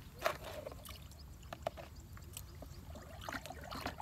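A stick stirring water and pesticide in a plastic backpack-sprayer tank: scattered light taps and knocks against the tank with faint sloshing, the sharpest tap just after the start.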